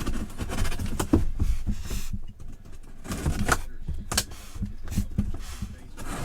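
Cardboard box and packaging being handled and rustled, with a few sharp knocks as the item is pulled out.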